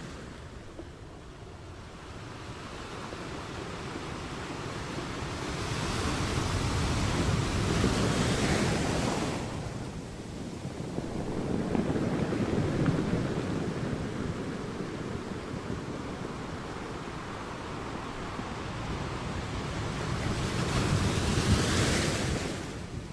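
Sea waves breaking and washing ashore in slow surges that swell and ebb. The biggest surges come about a third of the way in and again near the end.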